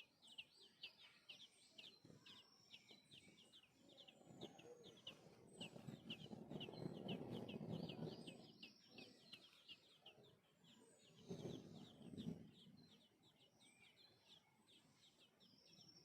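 High-pitched chirps repeated about four times a second without a break: baby birds begging to be fed. A rustling noise rises under them from about four seconds in to about nine, and again briefly near twelve seconds.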